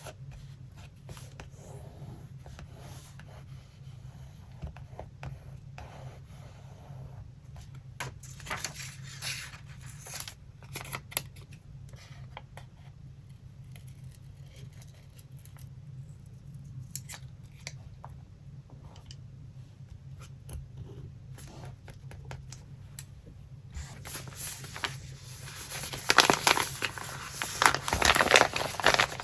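Paper being handled for a collage: scattered small snips, taps and scrapes, then louder, continuous crinkling and rustling of paper in the last several seconds, over a steady low hum.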